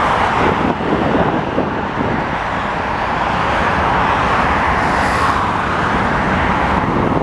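Steady highway traffic noise: cars and light trucks passing at speed, a continuous rush of tyres and engines.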